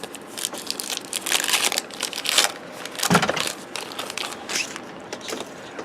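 Plastic wrapper of a baseball card pack crinkling as it is torn open and crumpled by hand, with a run of rustles and the loudest crunch about three seconds in.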